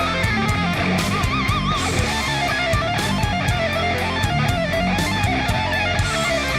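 Background rock music with electric guitar over a steady beat.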